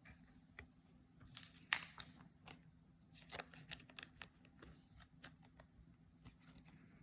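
Faint clicks and light rustling of trading cards and their plastic packaging being handled, with a sharper snap a little under two seconds in.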